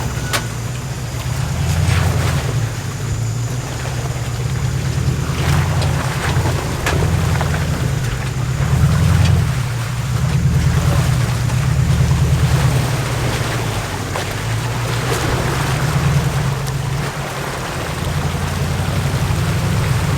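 Four-wheel-drive engine labouring at low revs through creek water, its note rising and falling, with water sloshing and a few sharp knocks near the start.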